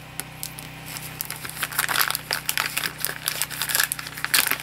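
A mail package being opened by hand: its wrapping is crinkled and torn in quick, irregular crackles that build from about a second in and are heaviest around two seconds and near the end. A steady low hum runs underneath.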